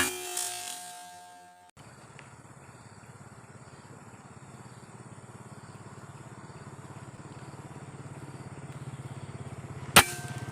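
A sharp crack of a .177 PCP air rifle shot at the very start, ringing briefly. Then a small motor runs steadily with a rapid pulse, slowly getting louder. A second sharp air rifle shot comes near the end.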